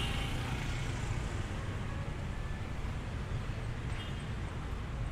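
Steady low rumble of vehicle engines and road traffic, with a brief faint high tone about four seconds in.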